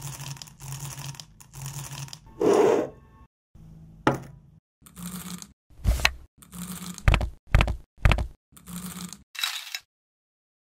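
Small plastic toy bugs being handled: crinkling and rustling as a hand rummages through them, then several sharp clicks and taps as they are set down one by one on a metal wire rack.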